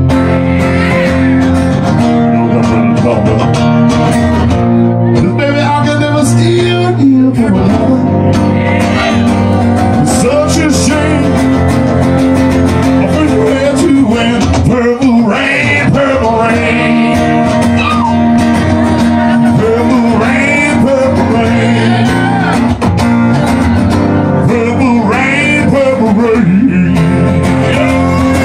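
Live acoustic duo: two acoustic guitars strummed together, with a man singing over them.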